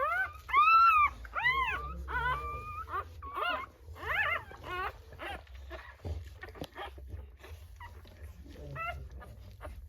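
Rottweiler whimpering in a series of high-pitched, arching whines. The loudest come in the first few seconds, followed by fainter, shorter cries.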